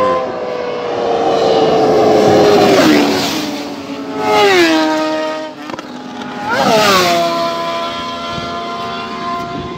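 Vehicles speeding past close by, three in turn, each engine note falling in pitch as it goes by. The last, about seven seconds in, is a motorcycle whose engine note rises briefly and then drops as it passes.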